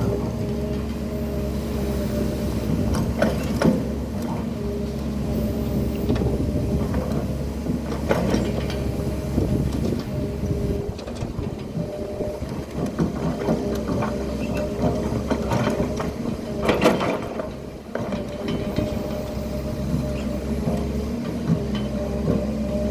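Hydraulic excavator's diesel engine running steadily under load as it works, with several sharp knocks, the strongest around 3, 8 and 17 seconds in.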